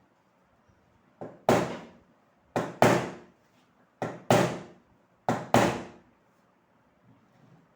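Four double knocks about a second and a half apart, each a light tap followed by a heavier blow that rings off briefly: strikes to free an exhaust fan motor's tight, never-opened nut.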